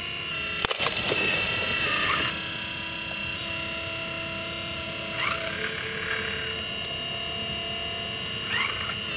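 Scale RC hydraulic excavator (Volvo EC460B model) working: a steady whine from its hydraulic pump, swooping in pitch three times as the boom and bucket move, with a brief rattle of clicks about a second in.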